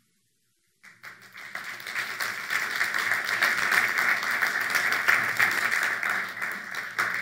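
A congregation applauding: a dense, steady patter of many hands clapping that starts about a second in and thins out near the end.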